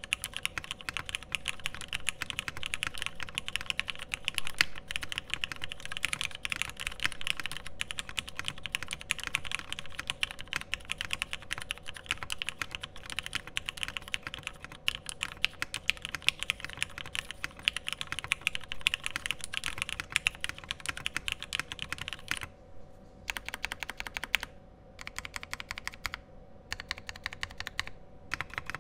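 A Matrix Lab 8xV2.0 Additional mechanical keyboard being typed on quickly. It has retooled Cherry MX Black linear switches, lubed and filmed, an aluminium plate, a silicone-dampened case and EPBT 9009 PBT keycaps. About 22 seconds in the fast typing stops, and after a short pause single keys are pressed in separate small groups.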